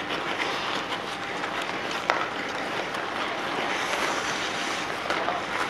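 Steady hiss of ice skates scraping and gliding on an outdoor bandy rink, with one sharp knock about two seconds in, a bandy stick striking the ball.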